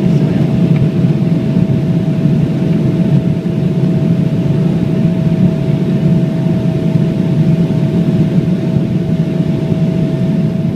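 Boeing 777-300ER jet, its GE90 engines and airflow making a loud, steady low rumble with one steady tone held above it and no change in pitch or level.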